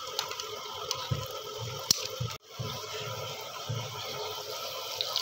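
Potato cutlets deep-frying in hot oil: a steady sizzle with small pops and crackles, broken by a sudden brief drop-out about halfway through.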